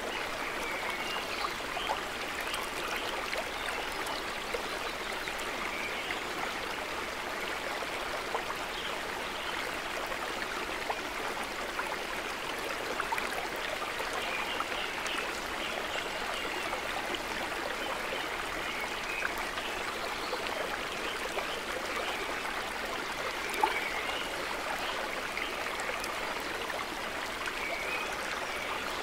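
Small rocky stream babbling steadily over stones, an even rush of running water.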